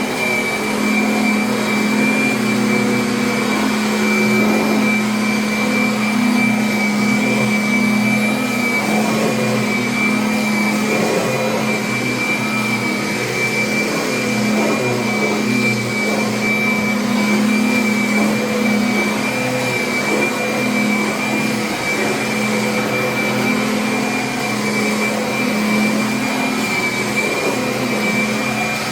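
Kirby vacuum cleaner running steadily: an even motor hum with a high whine over it.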